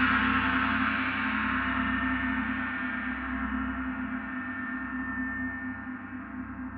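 Gong ringing out with a dense shimmer of many tones, slowly fading, the higher overtones dying away first over a steady low hum.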